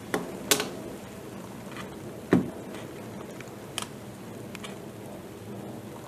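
Common kingfisher beating a small fish against a wooden branch: several sharp knocks, the loudest a little over two seconds in, over steady background noise.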